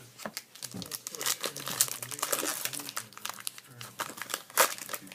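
Trading-card pack wrapper crinkling and tearing as it is pulled open by hand, in many irregular crackles, the sharpest a little past four and a half seconds in. The pack does not rip cleanly and takes a struggle to open.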